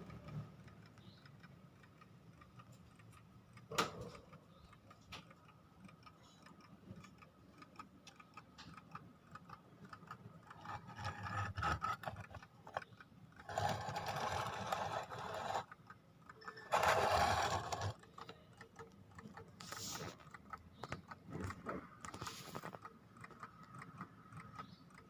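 Wind-up tin novelty alarm clock ticking with fine, even clicks, interrupted by a sharp click about four seconds in and several louder mechanical rattles lasting a second or two in the second half.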